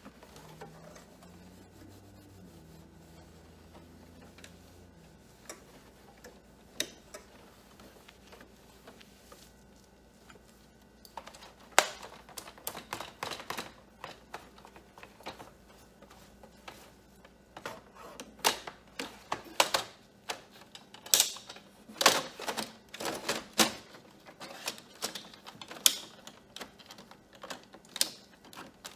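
Plastic clicks and knocks from a desktop printer's casing and front tray as it is wiped and handled with a cloth. The clicks come irregularly, start a little before halfway and are thickest in the latter part, with a faint low hum in the first few seconds.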